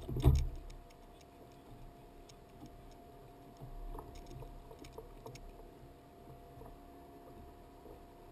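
A single sharp knock on the plastic kayak about a quarter second in, then faint scattered ticks and clicks of gear being handled over a low, steady background.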